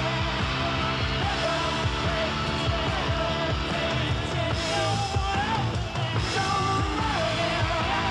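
Rock music with a singing voice, playing steadily.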